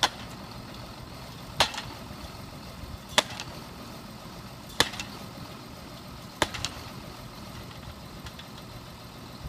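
Tractor-mounted post driver hammering a fence post: five sharp blows, evenly spaced about a second and a half apart, over the steady idle of a John Deere 6630 tractor's engine.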